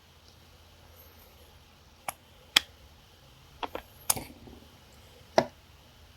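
Small metal hand tools clicking and tapping against a tiny alarm clock's movement and its pins, about six sharp, irregular clicks starting about two seconds in, one followed by a brief rustle.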